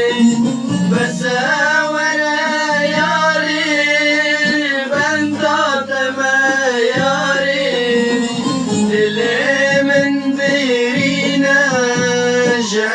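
Middle Eastern folk song music: an ornamented lead melody bending and sliding in pitch over sustained low accompanying chords, in a passage with no sung words.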